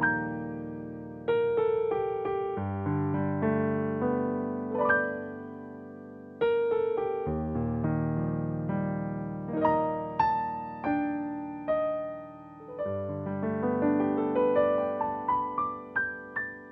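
Solo piano improvisation: chords and melody notes are struck one after another and left to fade, over low bass notes held beneath.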